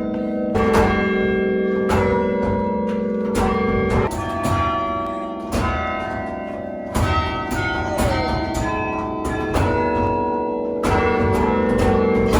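Bells chiming a slow melody, a new note or chord struck every second or so, each ringing on and overlapping the next.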